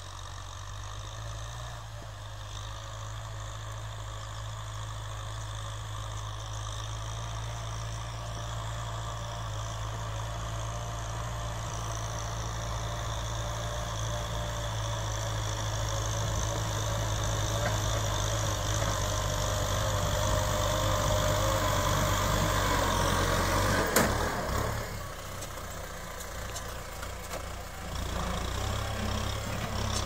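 Kubota tractor's diesel engine running steadily, growing louder as the tractor draws closer. A sharp click comes about three-quarters of the way in, after which the engine is fainter.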